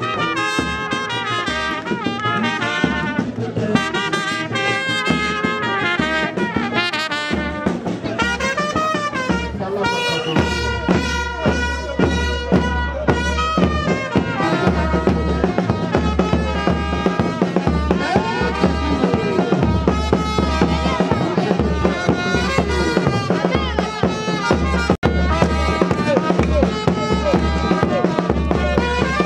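Music with a horn melody over a pulsing bass beat that comes in about ten seconds in; the sound cuts out for an instant near the end.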